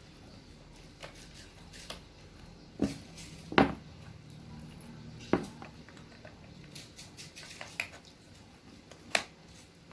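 Sharp plastic clicks and knocks of RJ45 plugs being pushed into a network cable tester's sockets and handled, a few separate clicks spread out, the loudest about three and a half seconds in.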